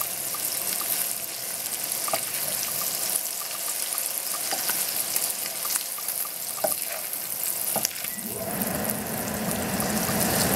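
Diced ham sizzling steadily in a nonstick frying pan, stirred with a wooden spoon that knocks lightly against the pan now and then. A low steady hum comes in about eight seconds in.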